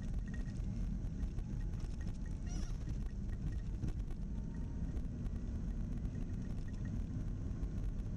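Steady low rumble of road and tyre noise inside the cabin of a moving 1984 Pontiac Fiero converted to electric drive.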